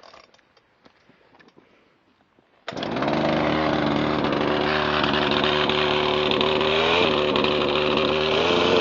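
After a few faint clicks, a two-stroke chainsaw engine catches suddenly nearly three seconds in and runs on steadily, its pitch wavering briefly about seven seconds in.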